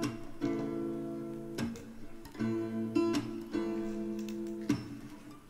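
Background music: acoustic guitar strumming chords between sung lines of a pop song.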